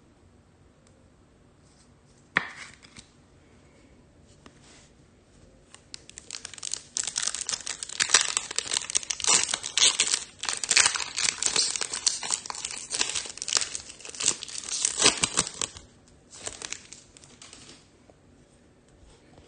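Wrappers of trading-card packs crinkling and tearing as the packs are ripped open: a dense crackle from about six seconds in that lasts roughly ten seconds, with a shorter burst after it. A single sharp tap comes about two seconds in.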